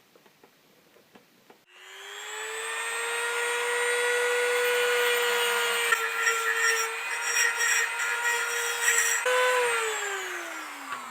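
A high-speed handheld rotary tool spins up about two seconds in and runs with a steady high whine, grinding unevenly as it cuts into the part. It then winds down with a falling pitch near the end.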